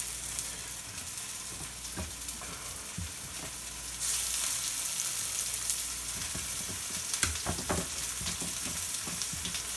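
Seasoned fish fillets sizzling in hot oil in cast iron skillets. The sizzle grows louder about four seconds in as a salmon fillet goes into the pan, with a few light knocks in between.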